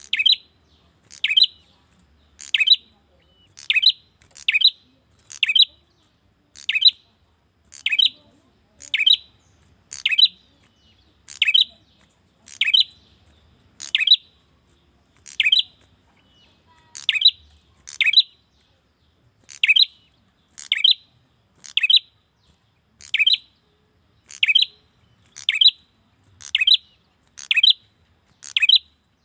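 A male prenjak calling to a female. It gives a sharp chirp about once a second, sometimes two in quick succession, and each chirp sweeps down in pitch.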